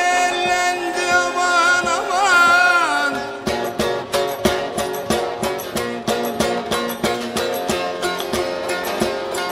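Turkish folk music: a long held note with vibrato for about the first three seconds, then a bağlama (saz) playing a quick run of plucked notes.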